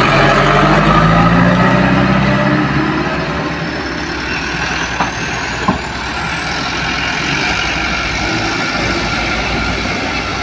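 Loaded dump truck's diesel engine running as it pulls past, its note rising over the first few seconds, then settling into a steadier rumble. A faint high whine climbs in pitch through the middle, and two short clicks come about five seconds in.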